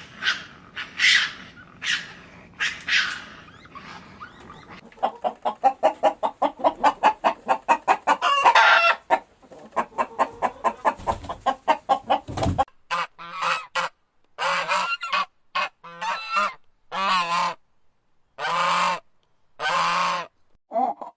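Farm birds calling: a fast run of repeated clucking-like calls, then, after a sudden cut, a series of separate longer honking calls.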